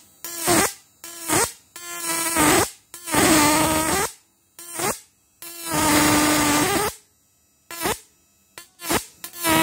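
High-voltage arc from a homemade 12 V-to-1200 V AC fishing-shocker inverter, its output lead touched again and again to a steel adjustable wrench: about ten loud buzzing bursts, some short and some over a second long, each bending in pitch as it starts and stops, with silent gaps between.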